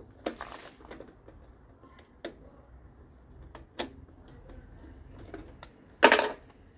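Screwdriver backing out the screw on the plastic air filter cover of a Briggs & Stratton push-mower engine: scattered small clicks and scrapes of metal on plastic, then a louder clatter about six seconds in.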